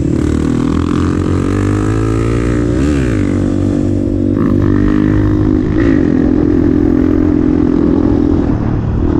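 Dirt bike engine running under way, heard from on board, with the revs shifting briefly about three seconds in and again near six seconds.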